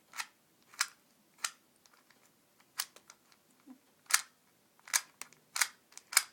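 A 2x2x3 cuboid puzzle (Slim Tower) being turned by hand: about nine sharp plastic clicks, irregularly spaced, as its layers are twisted and snap into place.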